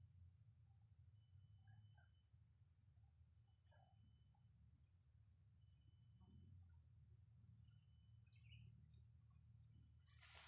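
Faint, steady high-pitched trill of insects such as crickets, unbroken throughout, over a low rumble of background noise.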